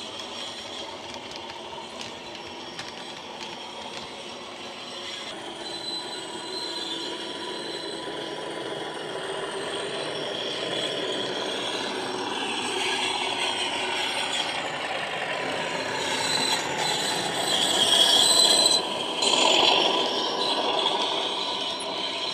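Accurascale OO-gauge Class 37 model locomotive's factory-fitted DCC sound decoder playing its diesel engine sound through the model's small onboard speaker, with the wagons' wheels clattering on the track. It grows louder as the train comes close, loudest a few seconds before the end, then eases off.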